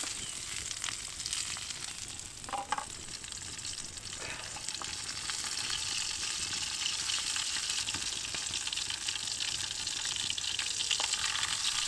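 Scarlet elf cup mushrooms frying in coconut oil in a pan, a steady sizzle with a few light clicks.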